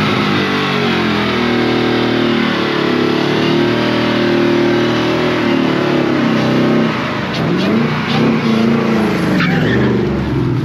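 Ford Mustang engine held at high revs during a burnout, with the rear tyres spinning and smoking. Near the end the revs swing up and down several times.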